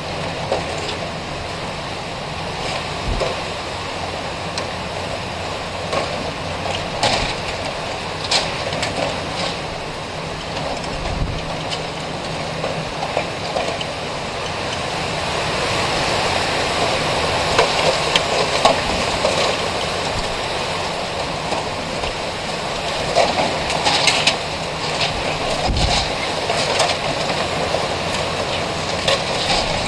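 Hurricane-force wind blowing steadily in gusts, growing louder about halfway through, with scattered metallic bangs and rattles from a corrugated aluminum awning being torn loose from a building wall and flapping.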